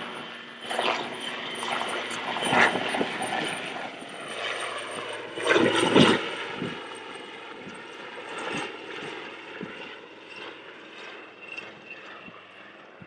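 Royal Navy AW159 Wildcat twin-turboshaft helicopter flying past, its rotor and turbine noise steady with a faint whine. Irregular louder gusts come through, the loudest about six seconds in, and the sound fades in the second half as the helicopter moves away.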